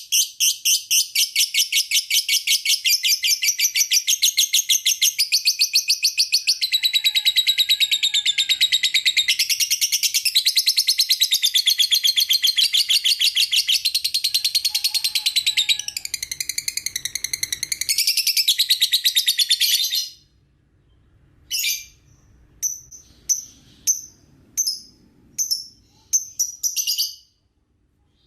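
Lovebird chattering: a long, fast, unbroken trill of high chirps that runs for about twenty seconds, then breaks into a few separate short chirps.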